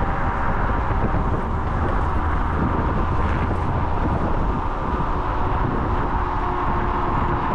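Kaabo Wolf King GT electric scooter being ridden at speed: steady wind rush on the chest-mounted microphone and road rumble, with a faint steady electric-motor whine.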